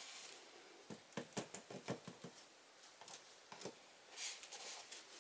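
Faint clicks and taps of a stir stick against plastic cups as acrylic paint is being mixed, with a brief rustle about four seconds in.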